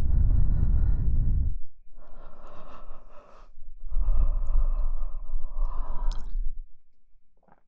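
Close-miked ASMR breathing: about three long, airy breaths, each lasting one to three seconds, with a strong low rumble under them.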